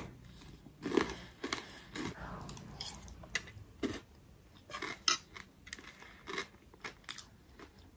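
Close-up chewing of a mouthful of crunchy chatpate made with dry noodles, heard as irregular crackles and crunches. A metal spoon clicks against the plate now and then.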